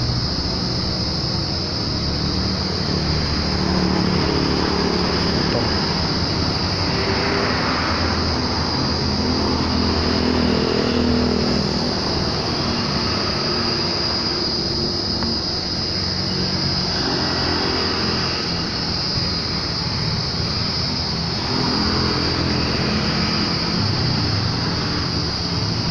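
Large diesel truck engine idling steadily, with a steady high-pitched whine over the low running drone.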